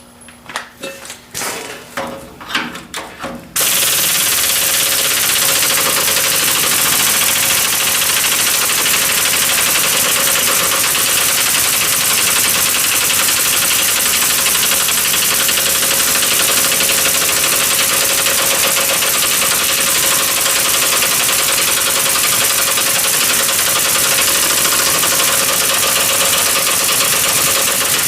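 A few metal clinks and knocks, then an impact wrench starts suddenly, about three and a half seconds in, and hammers steadily and loudly on a rusty U-bolt nut for over twenty seconds without stopping, failing to break it loose; the owner suspects the impact wrench is going bad.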